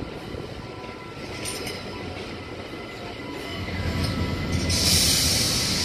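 A train approaching, its wheels squealing on the rails with a thin steady tone. It grows louder over the last couple of seconds with a low rumble, then a loud rushing hiss comes in near the end.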